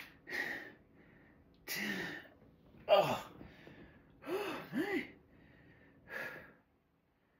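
A man breathing hard while lifting dumbbells: about five sharp, gasping breaths a second or so apart, the loudest about three seconds in. Two short voiced grunts of effort come around the middle, and the sound drops out to silence near the end.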